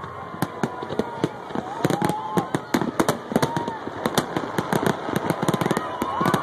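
Aerial fireworks going off in a dense, irregular barrage of bangs and crackles, coming thicker and faster from about two seconds in.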